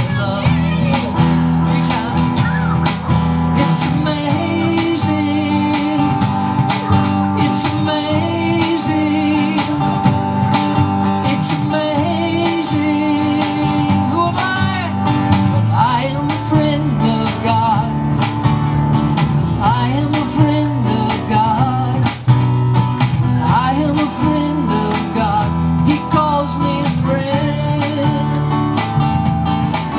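Live acoustic guitar and bass guitar playing a steady song, with a man singing over them at times.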